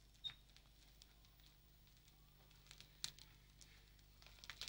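Near silence: room tone with a few faint small clicks, one about a quarter second in, another about three seconds in and a short cluster near the end.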